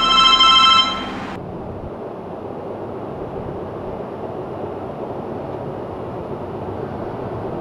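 Motorola RAZR flip phone's new-message alert: one bright electronic chime held for about a second and a half, then it cuts off. A steady rushing background noise runs under it.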